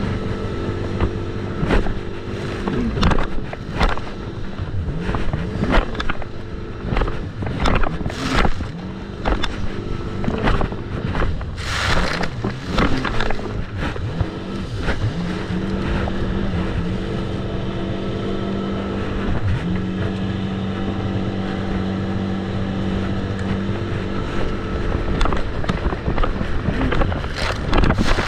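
Jet ski engine running under way, its pitch dipping and climbing with the throttle, steadiest in the second half. Sharp knocks come throughout, with a brief rush of noise about twelve seconds in.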